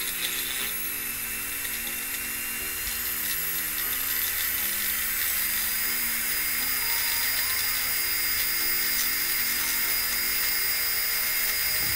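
Electric hand mixer running steadily, its beaters whipping egg whites in a bowl; a high motor whine slowly rising in pitch.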